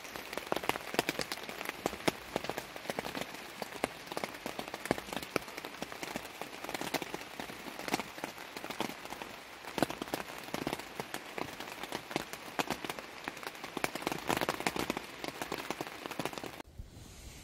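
Rain falling steadily, a dense, irregular pattering of many drops on a surface. It cuts off abruptly near the end.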